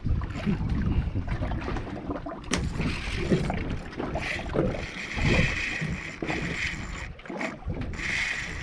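Boat at sea: wind buffeting the microphone over water noise, with scattered knocks and a higher rushing sound from about the middle and again near the end.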